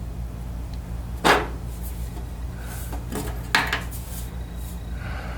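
Metal tools or parts being handled in the shop: two sharp clanks, about a second in and again midway, with lighter clinks between, over a steady low hum.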